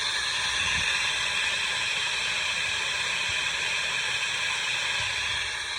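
Valve vacuum tester hissing steadily as it pulls a vacuum on a cylinder head port to check the valve seal. The test is finding a cracked intake valve.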